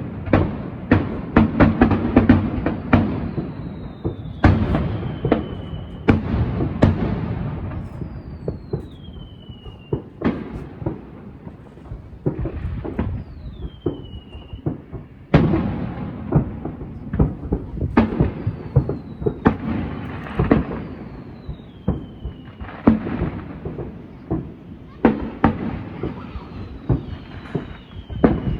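Fireworks display: a fast, irregular run of sharp bangs and low rolling booms from shells bursting, overlapping one another. A thin falling whistle is heard several times over the bangs.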